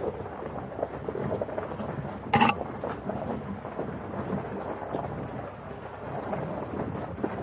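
Jeep Wrangler Rubicon's tyres rolling over a gravel track, a steady crackling rumble picked up by a bonnet-mounted camera, with one sharp knock about two and a half seconds in.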